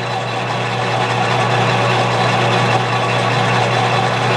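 Metal lathe running with its tool taking a light taper cut along a spinning rod: a steady motor hum under the even hiss of the cut.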